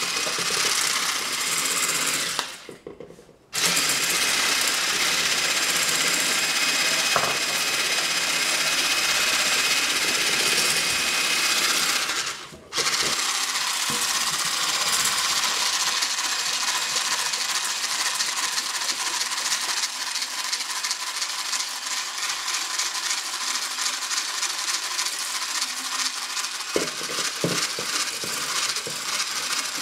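Electric mixer running steadily, switched off for about a second twice, about three seconds in and again around twelve seconds in.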